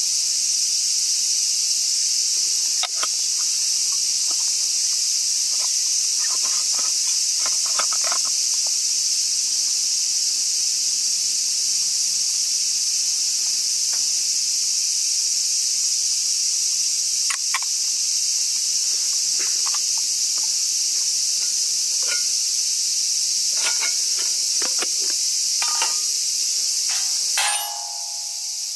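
Steady high-pitched insect chorus of a hot summer day, with scattered light clicks and clinks of small metal alcohol-stove burners and lids being set down and picked up on a stainless steel heat-shield table.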